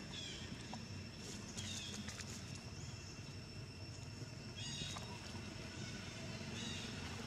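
Outdoor ambience: a steady low rumble and faint steady high tones, with a few short, high, falling chirps from an animal.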